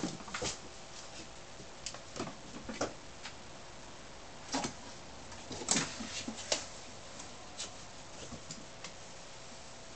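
Kittens scampering on cardboard boxes and a blanket: scattered soft knocks, taps and scuffs, a few at a time, over a faint steady hum.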